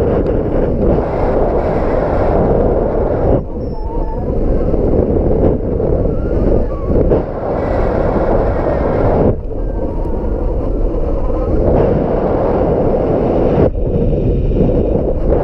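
Strong gusting wind buffeting the microphone: a loud, low rushing noise that drops and surges every few seconds.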